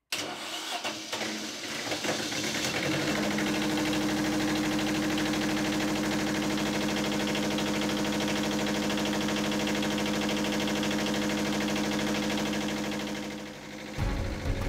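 Two-cylinder Lombardini diesel generator engine starting after its glow plugs are pre-heated, rough for the first couple of seconds, then settling into a steady run. The sound fades out near the end.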